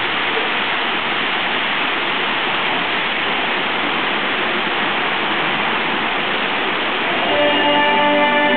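Steady rushing of water from a garden waterfall, with no pitch in it. Guitar music comes back over it about seven seconds in.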